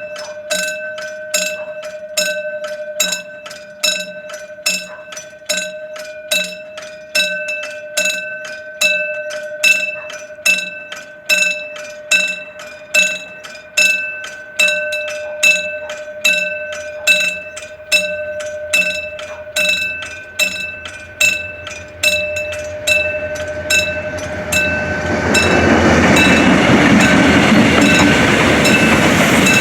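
Level-crossing warning bell ringing in even repeated strikes, a little over one a second. About 25 s in, the rumble and wheel noise of a passing cement freight train rise and drown the bell out.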